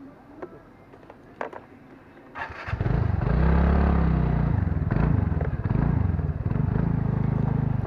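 Scooter engine started, catching about two and a half seconds in, then running with its pitch rising and falling. A few light clicks come before it.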